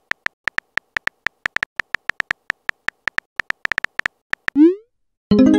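Simulated phone-keyboard tap clicks, quick and irregular at about six a second, as a text message is typed. About four and a half seconds in they stop and a short rising blip sounds as the message is sent, followed near the end by a louder electronic chime.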